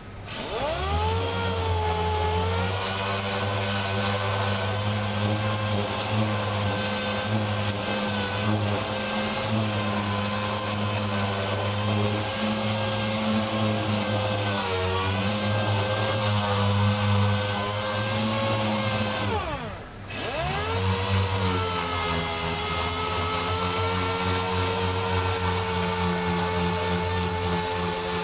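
Pneumatic orbital sander dry sanding body filler on a car door, its pad whirring against the putty. It spins up about a second in and runs steadily with a brief dip in pitch partway through. Near two-thirds of the way in it winds down and stops, then spins up again a second later.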